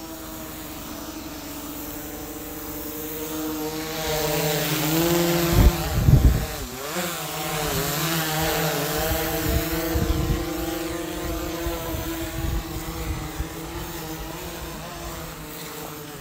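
A quadcopter drone's propellers whine steadily, their pitch wavering and dipping about five to seven seconds in. Low, loud thumps of wind on the microphone come at the same time.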